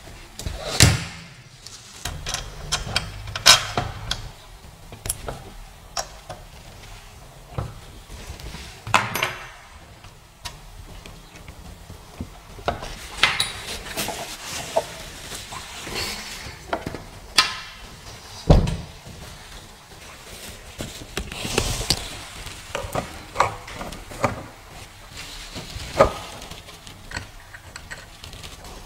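Metal frame parts of a Creality CR-6 SE 3D printer clanking and knocking as the gantry is handled and fitted onto the base, with scattered clicks and rattles and one heavier thud a little past the middle.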